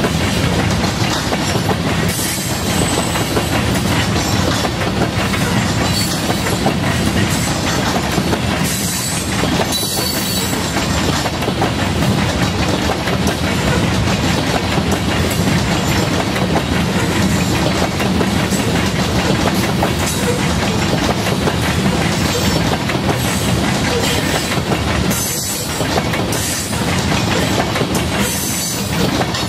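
Loaded covered hopper grain cars rolling past: steel wheels clicking over rail joints in a steady rumble, with brief high-pitched wheel squeals now and then.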